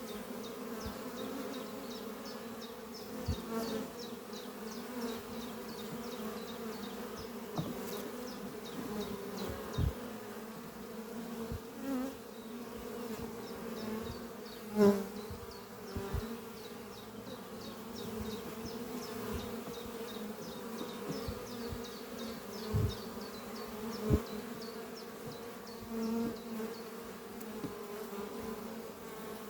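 Honeybees buzzing steadily as they fly in and out at the hive entrance. Now and then a single bee passes close, giving a brief louder buzz, the loudest about fifteen seconds in and another near twenty-four seconds.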